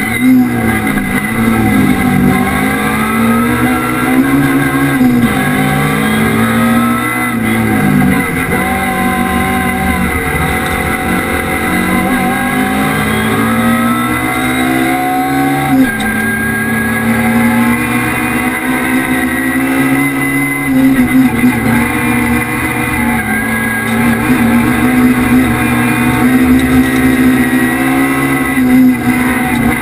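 Race car engine heard from inside the cabin, run hard at full throttle, its pitch climbing through each gear and dropping sharply at the shifts, one clear drop about halfway through.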